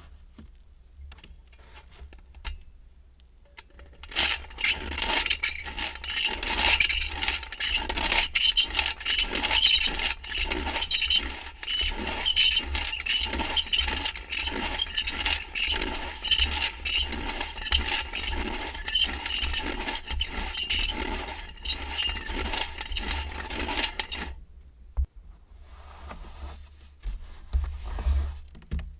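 A metal tool scraping through kinetic sand in repeated strokes, about two a second, for some twenty seconds. The strokes start about four seconds in and stop sharply a few seconds before the end.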